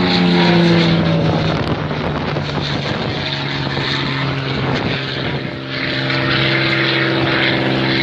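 Propeller aircraft engine drone overhead. Its pitch falls in the first couple of seconds as the aircraft passes, then holds steady. A second steady engine note comes in past the middle.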